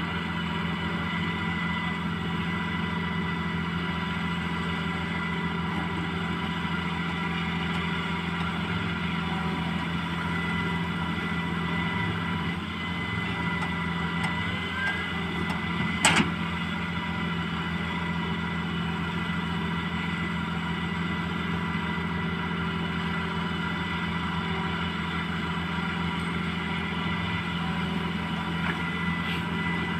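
Excavator engine running steadily at a constant speed, with a single sharp knock about sixteen seconds in.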